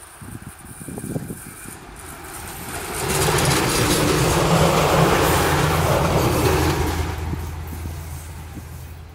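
Silver Fern diesel railcar RM 24 passing close by on the line: engine hum and wheels on the rails swell up about three seconds in, peak about five seconds in and fade away over the next few seconds.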